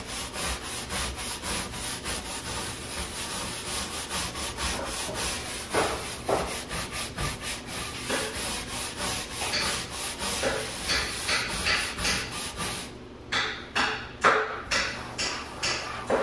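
Stiff-bristled brush scrubbing back and forth on a textured non-skid boat deck, working in adhesive remover to loosen spray-adhesive residue. The strokes come quickly and evenly, about four a second, and become fewer and sharper near the end.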